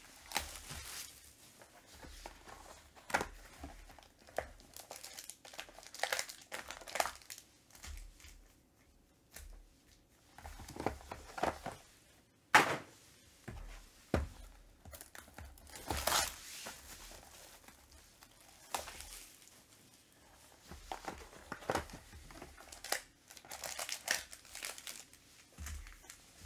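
Unwrapping and opening a sealed 2021 Panini Limited Football hobby box: plastic wrap crinkling and tearing, with the cardboard box and its foil-wrapped card packs handled and set down. Scattered rustles with quiet gaps and a few sharp taps, the clearest about twelve and fourteen seconds in.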